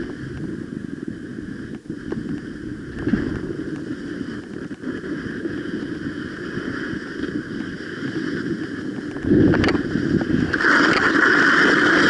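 Skis sliding and scraping over snow on a downhill run, with wind rushing over the camera's microphone. It gets louder about nine seconds in, and a harsher hiss joins it shortly after.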